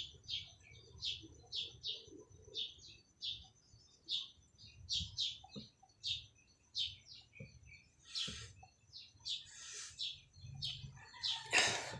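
A small bird chirping repeatedly in short, high chirps, about two a second. A brief louder noise comes near the end.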